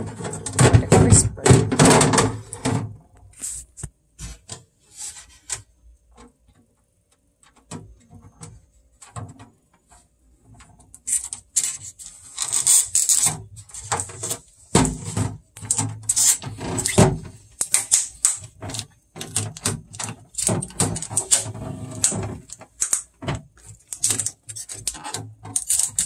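Clear plastic refrigerator baskets and trays being handled as packing foam is removed: a run of sharp plastic clicks, knocks and clatters. It falls quiet for several seconds after the first few, then the clattering resumes densely.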